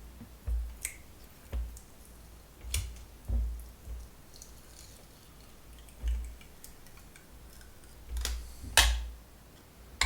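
Scattered clicks and light knocks of tools and hands working on the plastic housing of a Dyson air-purifier fan as it is taken apart, with a louder knock about nine seconds in.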